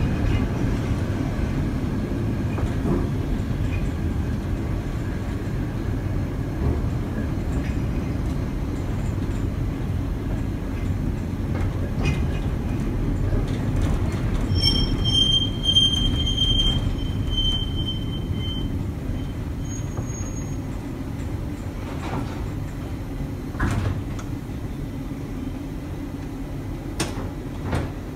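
Baltimore Air-Electric PCC streetcar running along the track, heard from the cab as a steady low rumble of motors and wheels on rail. A high-pitched wheel squeal rises about halfway through and lasts about four seconds. A few sharp clacks come near the end.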